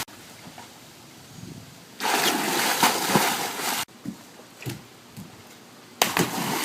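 Splashing in a swimming pool as an animal jumps in: a loud splash about two seconds in that stops abruptly, quieter sloshing, then another loud splash near the end.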